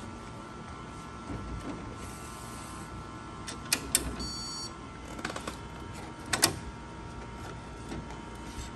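HP DesignJet T120 large-format printer's mechanism running with a steady whine as the printhead carriage moves into the ink cartridge access position. Sharp clicks just under four seconds in, a short electronic beep right after, and a louder click about six and a half seconds in.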